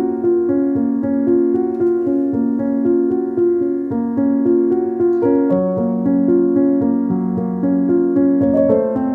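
Background music played on piano, a gentle melody of sustained notes.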